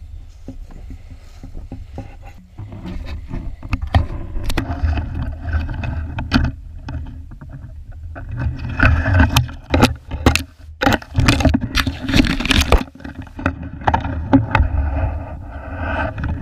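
Footsteps crunching in snow and twigs scraping and snapping against clothing and a body-worn camera, over a steady low rumble. The crackling and scraping get busiest in the second half.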